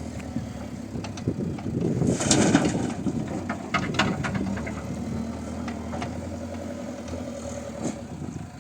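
Diesel engine of heavy earth-moving machinery running steadily. About two seconds in there is a louder rush of noise lasting around a second, and a few sharp knocks follow around four seconds in.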